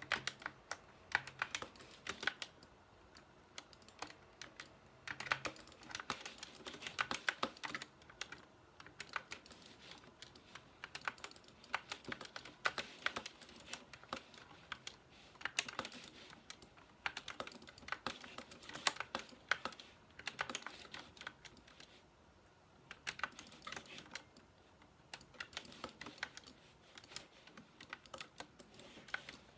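SK61 mechanical keyboard with red linear switches being typed on: fast runs of key clacks, with a couple of brief pauses.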